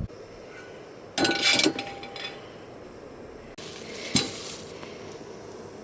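Metal cookware clinking: a short clatter with a brief ringing tone about a second in, as a pot or its lid is handled. A steady hiss follows, with one more sharp clink near the middle.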